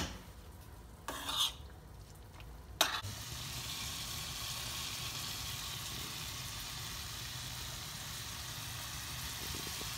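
Sausage, onion and green pepper frying in a stainless steel skillet, sizzling steadily from about three seconds in. Before that come a couple of sharp knocks and a brief rustle.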